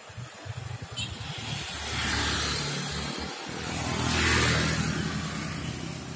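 Two road vehicles driving past one after another, each swelling and fading, the second louder, about two and four seconds in.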